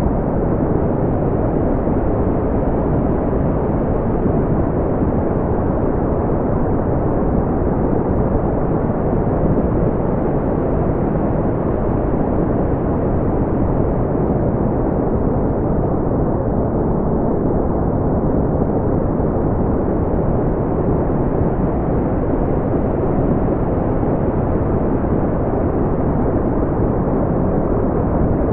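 Steady brown noise: an even, deep rumbling hiss with its energy in the low end and little above a few kilohertz, unchanging in level.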